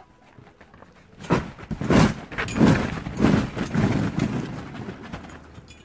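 A run of about six soft thumps and rustles on a trampoline mat, a little under two a second, as water balloons are pushed and scattered across it.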